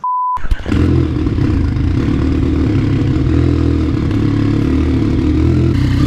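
A short test-tone beep, then a motorcycle engine idling steadily.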